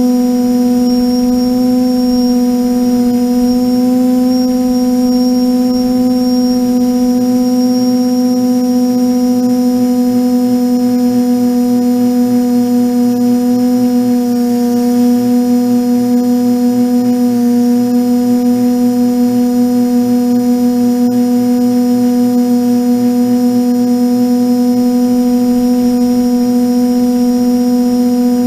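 TBS Discovery quadcopter's electric motors and propellers humming steadily at one low pitch with a faint high whine above, heard through the onboard camera in cruising flight. The level wavers slightly in the second half.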